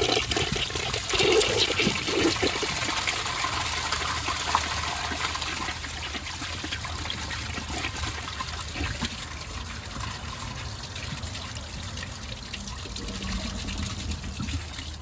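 1981 Briggs Abington toilet flushing on 1.6 gallons with a grocery bag in the bowl. The rush of water is loudest in the first few seconds, then eases into a steadier running as the bowl and tank refill.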